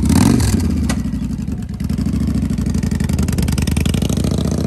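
2016 Victory Vegas 8-Ball's 106 cubic inch V-twin running through an aftermarket Freedom Performance exhaust as the bike pulls away at low speed. A short lift in engine note at the start and a single sharp click about a second in.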